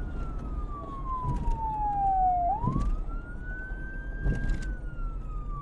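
Police siren in a slow wail: the pitch falls steadily for about two and a half seconds, sweeps quickly back up and holds, then begins to fall again, over a low background rumble.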